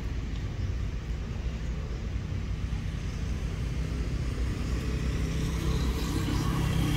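Steady low rumble of a motor vehicle's engine running nearby, growing a little louder in the last couple of seconds.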